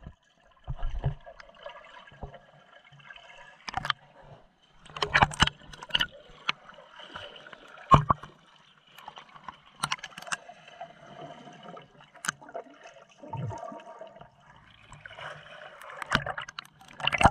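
Pool water splashing and sloshing around a GoPro that dips in and out of the water, heard as muffled underwater noise broken by irregular sharp splashes.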